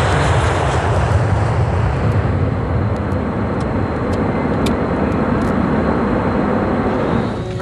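Jet airliner engines running at takeoff thrust: a loud, steady rushing roar. Its hiss thins out after about two seconds, and the sound drops away near the end.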